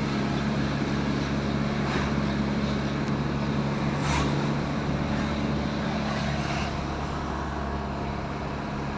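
A vehicle engine running steadily, a constant low hum of a few fixed tones over a haze of outdoor noise.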